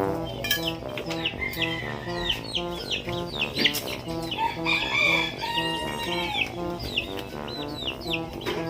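Background music with a steady repeating beat, with chickens clucking and short high peeping chirps that fall in pitch, over and over.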